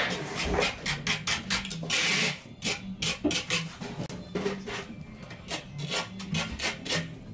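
Steel trowel scraping thinset mortar across the top of a shower curb in quick repeated strokes, spreading the bed for a marble threshold.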